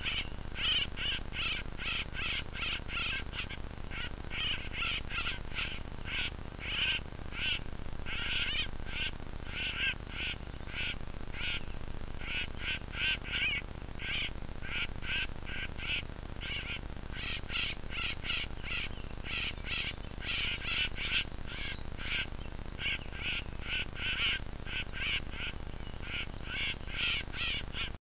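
Grackles calling: an unbroken series of short calls, about two or three a second.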